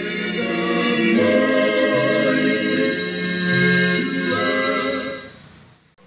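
Choir singing a cappella, several voices holding chords in harmony. It swells up over the first second and fades out near the end.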